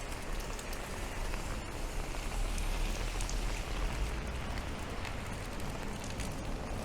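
Steady rain falling, a dense patter of drops with scattered small ticks, over a low steady rumble.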